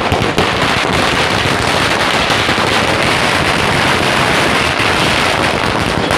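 A long string of firecrackers going off on the ground in a rapid, continuous, loud crackle of bangs.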